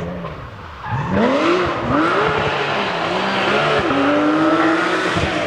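Rally car engine at full throttle. A falling engine note at first, then about a second in the car comes in much louder, revving hard, its pitch climbing and dropping back several times as it shifts up through the gears.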